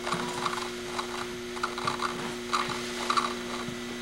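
Irregular soft rustling and handling of papers spread on a carpeted floor, over a steady electrical hum.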